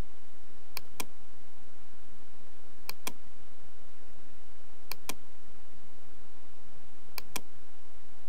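Computer mouse button clicked four times, each a sharp press-and-release pair of clicks, about two seconds apart, over steady low background noise.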